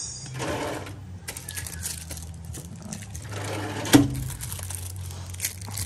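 Rattling and clattering as things are rummaged and a plastic mixing cup is picked up by a metal tool chest, with one sharp clack about four seconds in. A low steady hum runs underneath.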